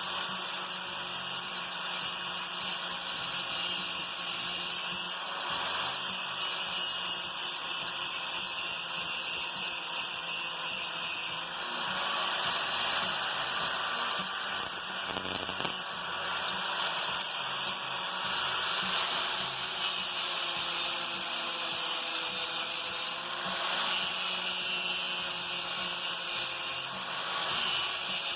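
Handheld electric grinder running and grinding the edge of a steel lawn mower blade: a steady motor whine under a harsh, high grinding noise that grows stronger and weaker in stretches.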